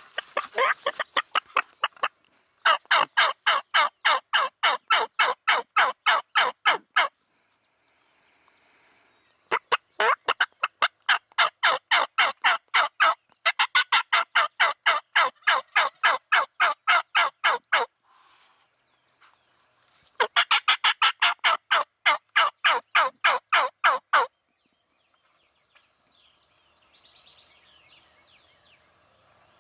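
Turkey calling: rapid, evenly spaced yelps at about five notes a second, in four runs lasting a few seconds each with short pauses between, ending a few seconds before the end.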